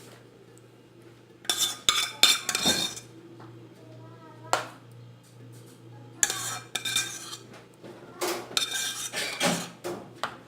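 A spoon scraping and clinking against a baking dish in several short bunches, spreading tomato sauce over the top layer.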